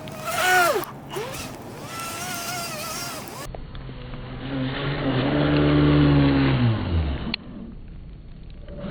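An RC car's motor revving, its pitch sliding up and down. After a cut, the motor swells to a steady run, then drops away in pitch, followed by a sharp click.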